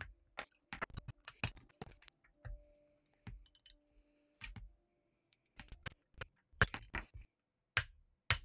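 Irregular sharp clicks and knocks from hands working on a metal airsoft M4 lower receiver and setting small tools down on a work mat. The loudest few come in the second half.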